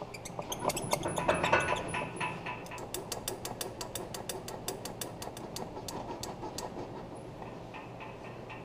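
A ratchet wrench clicking in a quick run, about six clicks a second, as it is worked back and forth on a seized exhaust manifold bolt in a Ford 351 Windsor cylinder head; the bolt is just breaking free, turning only a little at a time. A thin high squeak comes before the clicking.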